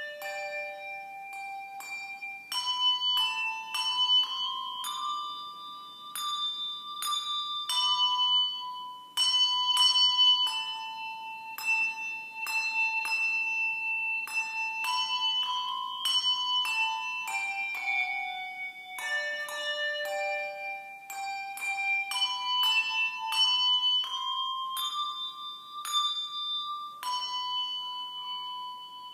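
A group of handbells playing a slow melody, each bell struck in turn and left ringing so that the notes overlap, with a new note roughly every half second to second.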